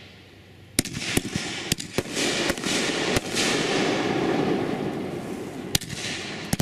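World Class Fireworks 'Trigger Happy' 500-gram cake firing: a string of about eight sharp bangs as its shots go off, with a steady crackling hiss between about two and five seconds in.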